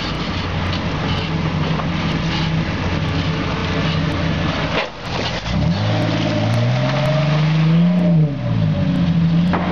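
Vehicle engine running steadily, then about halfway through a Jeep Wrangler's engine revving up in a rising pitch as it pulls away over snow, easing off and settling back to a steady drone near the end.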